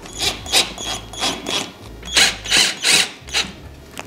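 Cordless drill driving screws into a metal futon frame in a run of short bursts, about two a second.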